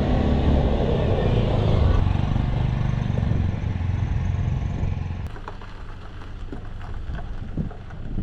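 A motor vehicle's engine running close by, loud for about five seconds and then dropping away to a lower rumble.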